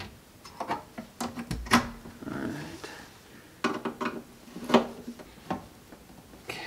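Irregular metallic clinks and knocks as a screwdriver and small metal parts are handled against the sheet-metal case of a Propex HS2800 propane furnace. They come in two bunches with a short lull between them.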